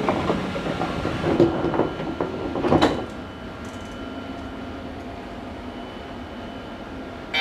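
Inside the cab of a JR Kyushu 817 series electric train: a few knocks and rattles in the first three seconds, then the train's steady hum.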